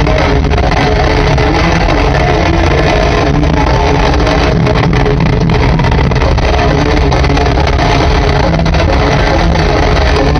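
Heavy metal band playing live at full volume, recorded so loud that it distorts into a muddy, bass-heavy roar with no break.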